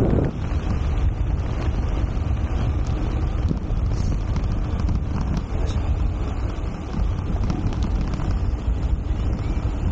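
Wind buffeting the microphone of a bike-mounted action camera while riding, a steady low rumble.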